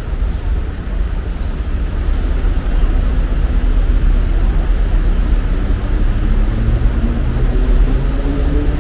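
Road traffic: a steady low rumble of vehicles, with an engine rising in pitch over the last few seconds as it speeds up.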